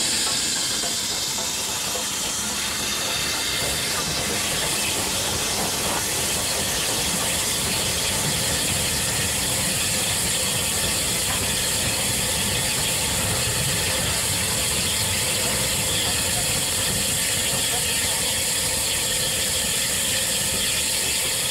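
Steam-hauled passenger train passing close by: a strong hiss of steam from the locomotive at the start, then the steady rumble and clatter of the coaches' wheels and running gear as they roll past.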